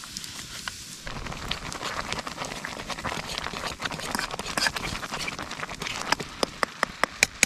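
A metal spoon stirring and whipping freshly mixed instant mashed potatoes in a metal pan, with wet scraping and clicking, ending in a fast run of sharp clicks, about five a second, as the spoon knocks against the pan.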